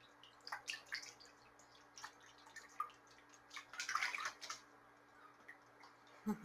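Pet goose dabbling and splashing in shallow bathtub water: faint scattered splashes and drips, with a busier burst of splashing about halfway through.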